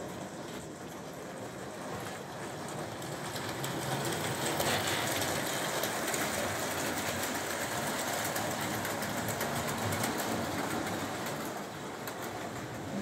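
Stadtilm S gauge model trains running on the layout: a steady rattle and hum of the wheels and motors on the track. It grows louder about four seconds in as a train passes close.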